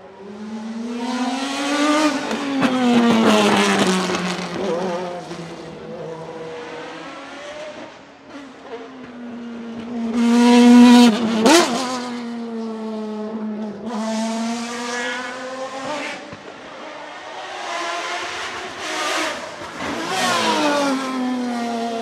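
BMW V12 LMR's naturally aspirated 6.0-litre V12 racing engine driven hard past the spectators, revving up and dropping back through the gears in several surges with the pitch climbing and falling. The loudest surge comes about ten to twelve seconds in.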